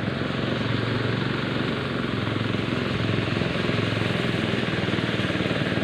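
A small engine running steadily, with an even, rapid pulsing.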